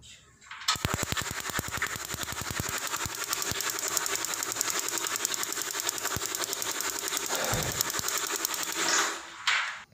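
LPG gas geyser's electronic pulse igniter sparking at the burner electrodes: a rapid run of ticking over a hiss that starts just under a second in and stops about nine seconds in. The burner never lights, so the spark is working but no gas reaches the burner. The repairer traces this to the control box not opening the SV (solenoid) gas valve.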